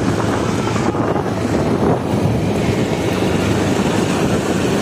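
Wind buffeting the microphone on a moving motorcycle, over the running of the KTM 390 Duke's single-cylinder engine at low road speed.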